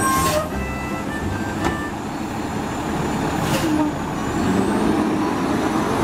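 Front-loading garbage truck's diesel engine running steadily at the curb, with two short hisses of air, one at the start and one about three and a half seconds in, typical of the air brakes.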